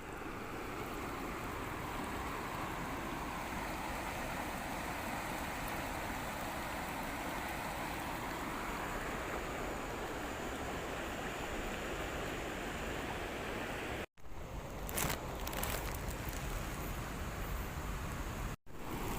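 Cimanuk river water rushing steadily. The sound cuts out briefly twice near the end, with a few sharp clicks between the breaks.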